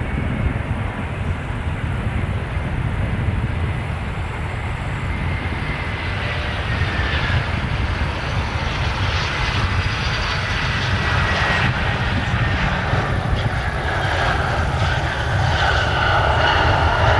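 Airliner's engines running at the runway, growing steadily louder, with a thin whine that slides slowly down in pitch.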